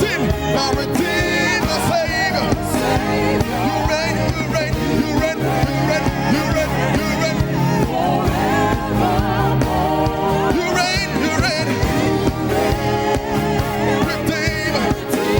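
Live gospel worship music: a singer leading over a band with keyboards and drums, with a steady beat.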